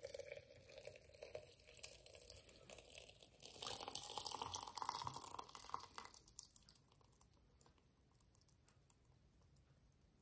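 Water poured from a kettle into a glass teapot over loose green tea leaves in a steel infuser basket. The pour splashes steadily, grows louder about three and a half seconds in, then thins to faint drips about six seconds in as the kettle runs short of water.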